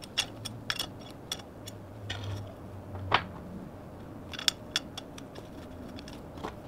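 Scattered light clicks and metallic clinks of small tools and hardware being handled, with one sharper clink about three seconds in.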